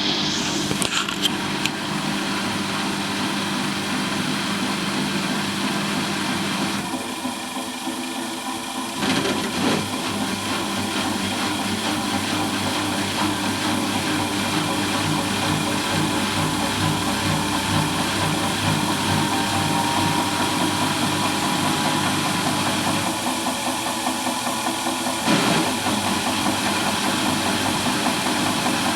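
Samsung WW60J3247JW front-loading washing machine spinning its drum, the motor whine rising in pitch as it speeds up partway through, with a rhythmic knocking underneath. The knock is a fault in the new machine, heard even with the drum empty and louder on the spin.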